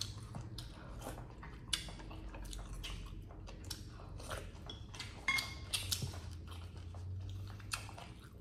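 Close-miked mouth sounds of people chewing goat meat, with scattered wet clicks and a few sharper ones about two seconds in and around five to six seconds in, over a faint low steady hum.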